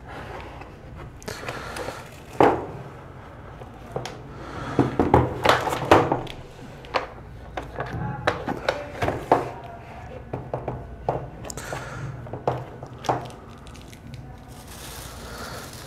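Plastic exhaust fan being handled: irregular clicks and knocks of its plastic housing and rear shutter cover being taken apart and set down on a table, with light rustling.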